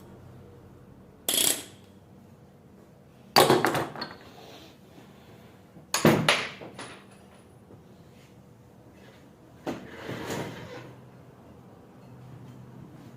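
Metal tools and parts clanking as they are handled during a starter-motor removal: four separate sharp clinks and clanks, about a second, three and a half, six and ten seconds in. The third rings on briefly, and the last is softer and drawn out.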